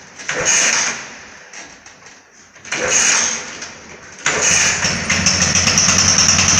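Suzuki Burgman AN125 scooter's single-cylinder engine being kick-started with its freshly repaired kick-start pedal. Two short kicks turn the engine over without it catching; on the next kick, about four seconds in, it fires and settles into a steady, fast idle.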